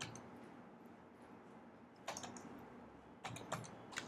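Computer keyboard keys being typed: faint clicks of keystrokes in short clusters, one about two seconds in and another a little past three seconds.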